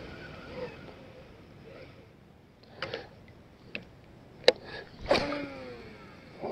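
Baitcasting reel clicking as it is handled and the clutch is thumbed open, then a cast: the spool spins with a whine that falls in pitch as it slows, and the lure lands with a small splash near the end.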